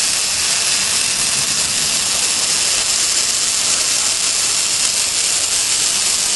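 Wire-fed (MIG) welding arc hissing steadily as a weld is run on an automated welding carriage.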